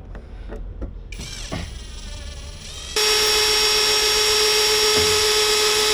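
A power drill running at a steady speed for about three seconds, starting abruptly about halfway through, after some quieter handling noise.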